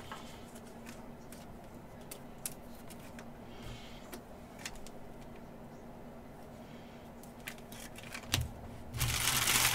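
Trading cards handled with faint clicks and rustles, then near the end a card pack's wrapper torn open with a loud crinkling rip.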